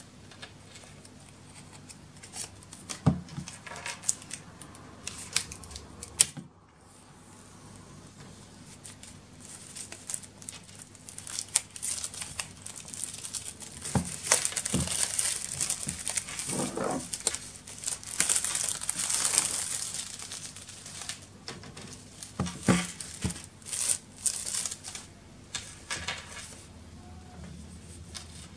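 Plastic shrink-wrap crinkling and tearing as it is pulled off an Apple Watch box by its pull tab, with the cardboard box handled and knocking lightly on the table a few times.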